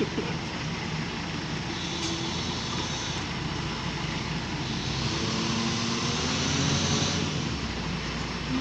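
Water from a newly replaced submersible pump running out of the pipe as a steady rush. It grows a little louder about five seconds in, then eases.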